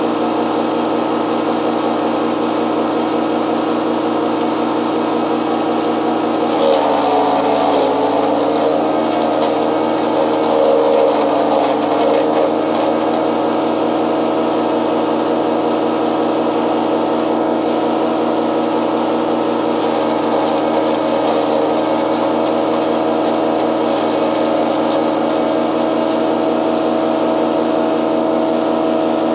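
A motor running steadily with an even pitched hum. About 7 seconds in its pitch dips for several seconds, as under load, with added hiss, then it recovers.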